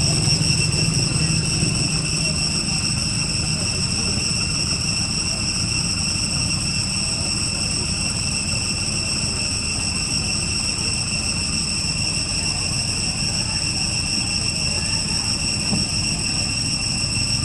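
Steady high-pitched insect drone in three even tones, over a constant low rumble of outdoor background noise.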